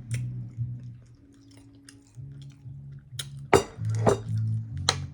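A person chewing food with open-mouthed lip smacking, close to the microphone, with a cluster of sharp wet smacks in the second half, the loudest about three and a half seconds in.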